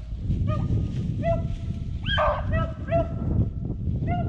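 Rabbit hounds barking, short barks about two a second with one longer bark about two seconds in, over a steady low rumble.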